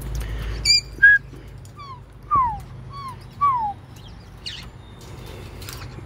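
Caique parrots whistling: a couple of sharp high chirps, then a run of about five short, clear whistles, each sliding downward.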